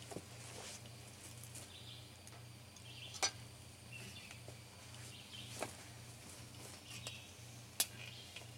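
A few sharp clinks of forks and enamelware plates on a metal mesh table, loudest about three seconds in and near the end, over soft bird chirps.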